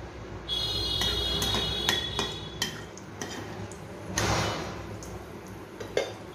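A spatula tapping and clicking against a nonstick frying pan while turning dried red chillies frying in hot mustard oil: a quick run of sharp taps, a short scrape about four seconds in, and one more knock near the end.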